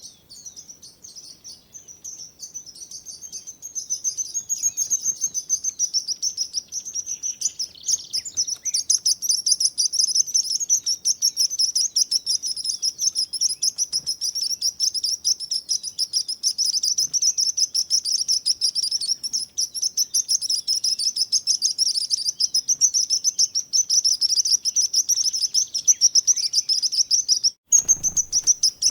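Sparrows chirping: a dense, continuous stream of quick, high chirps, growing louder a few seconds in, with a brief break near the end.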